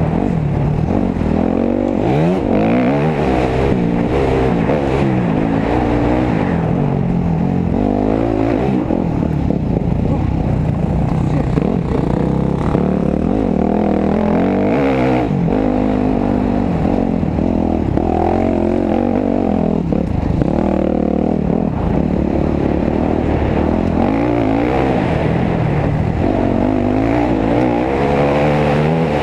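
Dirt bike engine ridden along a trail, its revs rising and falling over and over as the rider works the throttle and gears.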